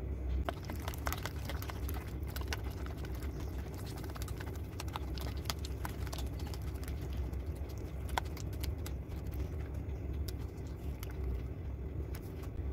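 Thick golibaje batter of curd and maida being beaten by hand in a steel bowl, to work air into it: many quick, irregular slaps and clicks over a steady low hum.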